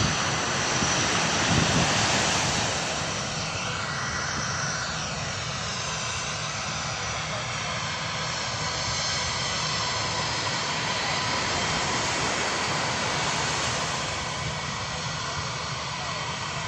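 Jet airliner passing overhead, loudest about two seconds in, then a steady engine rush with a faint falling whine as it moves away.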